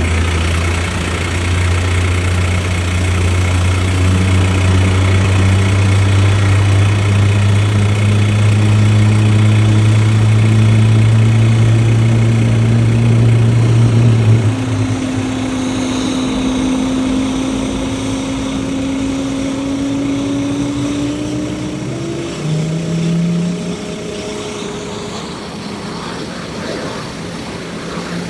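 Rolls-Royce Trent XWB turbofans of an Airbus A350-900 running at taxi power: a steady low drone that changes about halfway through, followed by tones that slowly rise in pitch.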